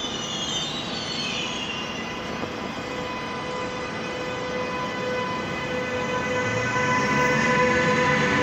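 DB Class 101 electric locomotive pulling slowly along the platform, its traction equipment whining in steady tones over the rumble of the train. A high squeal glides down in pitch in the first second or so, and the sound grows louder as the locomotive passes close.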